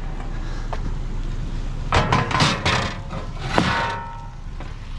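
Hard knocks and clatter as a chair is handled and loaded into a car: a run of knocks about two seconds in, then another knock with a brief squeak at about three and a half seconds, over a low steady rumble.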